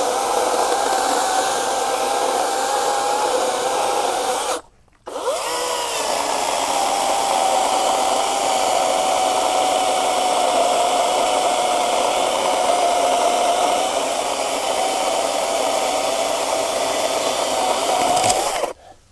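EGO 56V brushless 16-inch battery chainsaw cutting through a log: a steady, high electric-motor whine with the chain rasping through the wood. About five seconds in it stops for half a second, then rises back up to speed and cuts on until just before the end.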